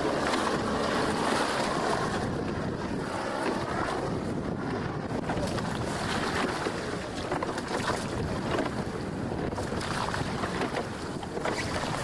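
Wind buffeting the microphone over water washing and splashing around an open rowing boat under way.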